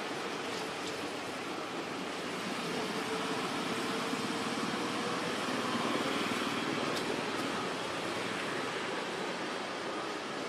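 Steady outdoor background noise with no single clear source, swelling slightly about halfway through, with a few faint ticks.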